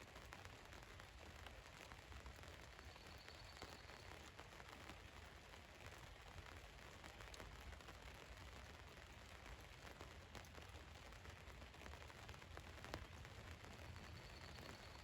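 Rain falling on a van: a faint, steady hiss dotted with many small drop ticks, over a low rumble.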